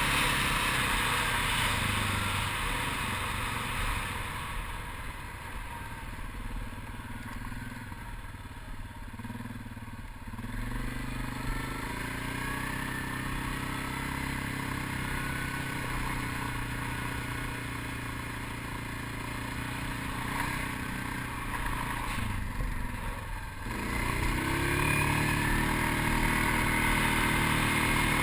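Quad ATV's engine running under throttle while riding over sand, its pitch rising and falling with speed. Near the end it drops off briefly, then revs up and runs louder again, with wind noise on the helmet-mounted microphone.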